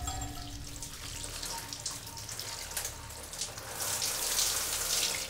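Shower water running, a steady spraying hiss that grows louder about four seconds in.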